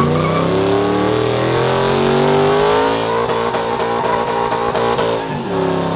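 Lifted truck's engine revving hard for a burnout: it climbs to high rpm over the first few seconds and holds there with a fast, even stutter, then the revs drop sharply about five and a half seconds in.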